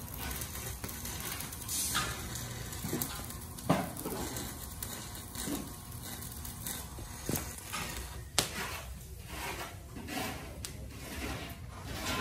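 Electric arc welding on steel floor decking: a steady crackling hiss, with two sharper metal knocks, about 4 and 8½ seconds in.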